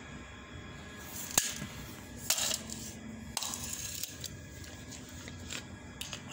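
A few light metallic clinks and scrapes as a piece of steel angle bar is set and handled against a steel-tube trolley frame, the sharpest about a second and two seconds in.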